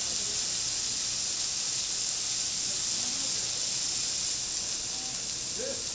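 Beef steak sizzling on a hot flat iron teppanyaki griddle: a steady, even hiss.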